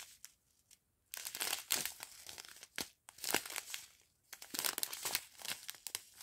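Clear plastic sachets of round diamond-painting drills crinkling as fingers squeeze and move them, the drills shifting inside. It comes in several short bursts of crackle with brief silent gaps.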